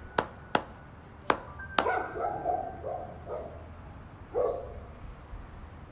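A single person clapping slowly, a handful of claps that come further and further apart and stop about two seconds in. A few short pitched calls follow in the background.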